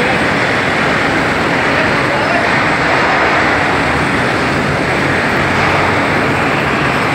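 Steady loud machinery noise in a factory hall, an even rushing noise with no breaks, with voices underneath.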